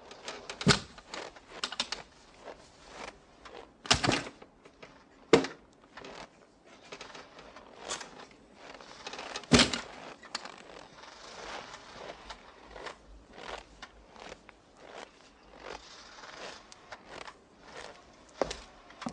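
A few loud thuds of car doors shutting, about four, five and ten seconds in, among scattered lighter clicks and knocks.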